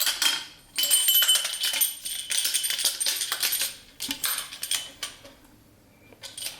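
Damper cartridge and coil spring of a Marzocchi Monster fork rattling and scraping against the inside of the fork leg as they are slid down into it: dense metallic clinking in several spells, with a short lull near the end.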